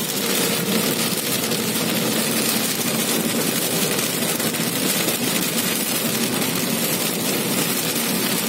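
Heavy rain on a car's windscreen and roof, mixed with tyres hissing on the wet road and the engine running, heard from inside the moving car. The noise is steady and even throughout.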